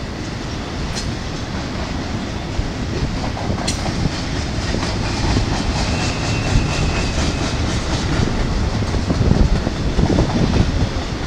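Intermodal freight train's loaded container and trailer cars rolling past: a steady rumble of steel wheels on rail with a rhythmic clickety-clack, getting a little louder. A faint wheel squeal comes about halfway through.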